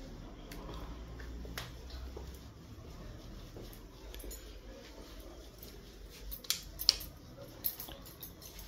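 Low steady room rumble with scattered light clicks and taps, two sharper ones about six and a half and seven seconds in.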